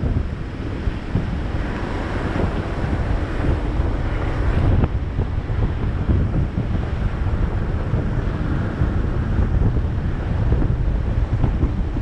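Wind buffeting the microphone over the steady rumble of a car driving up a steep mountain road.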